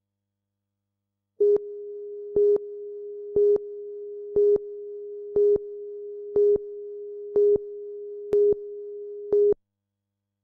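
A steady electronic tone of one pitch with a louder beep about once a second, nine beeps in all, cutting off abruptly after about eight seconds.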